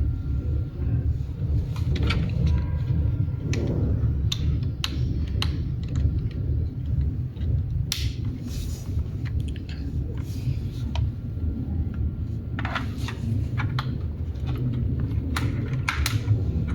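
Scattered clicks and clinks of small hard parts and tools being handled, some coming in quick clusters, over a steady low rumble.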